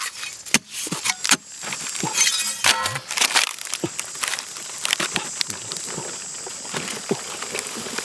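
Hard, dry earth mound being broken apart by hand: a string of sharp cracks and knocks, with crumbling and scraping of dry clods in between.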